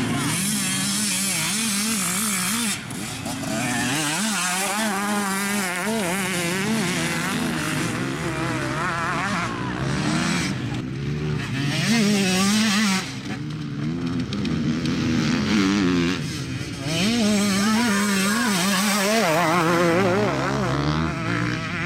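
Enduro dirt bike engines revving up and dropping back over and over, the pitch climbing and falling with the throttle. There are a few sudden jumps in level and tone where the sound changes abruptly.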